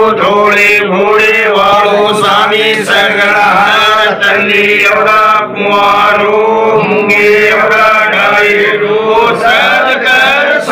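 Male voice chanting a ritual prayer in a continuous sung melody, with a couple of brief breaks for breath.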